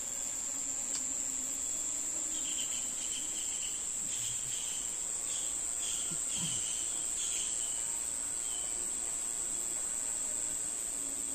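Insects, crickets or cicadas, keeping up a steady high-pitched drone, with a run of short, higher chirps in the middle.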